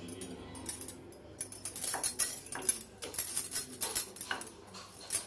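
Wooden rolling pin rolling and knocking on a stone countertop as a flour-dusted dough disc is rolled out, with bangles clinking on the wrist. It comes as a run of irregular light clicks and taps starting about two seconds in.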